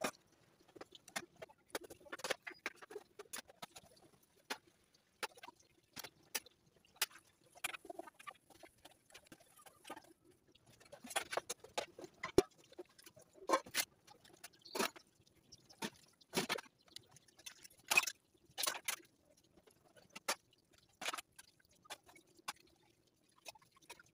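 Metal dishes and pots being washed by hand: irregular clinks and clanks as plates, bowls and pots are knocked together and set down, with some splashing water.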